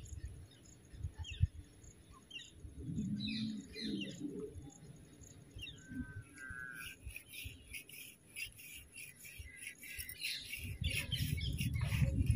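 Small birds chirping in short, scattered calls that grow busier in the second half. A low rumbling noise builds near the end.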